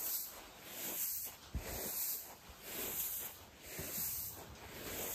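Unhulled rice seed spread out to dry, being stirred by a rubber boot: a rhythmic swishing of shifting grain, about one sweep a second, with a few soft footfall thumps.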